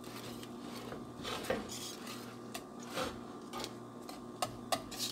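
Wire balloon whisk stirring thick mashed potatoes in a stainless steel saucepan, working milk in, its wires scraping and clicking against the pot's sides every second or so.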